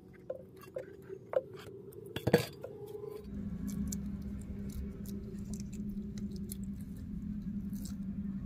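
A few sharp clicks and clinks, the loudest about two seconds in, as wet cement mortar is packed by hand under a ceramic squat toilet pan to grout its joint with the trap. From about three seconds in a steady low hum sets in.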